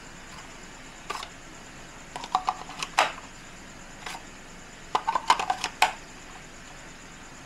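Hard plastic clicks and clacks from a drone battery charging hub being handled and turned in the hands. The clicks come in two quick clusters, about two seconds in and about five seconds in, with single knocks in between.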